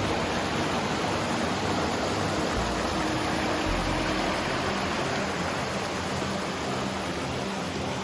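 Rushing brook water, a steady, even hiss of flowing and falling water.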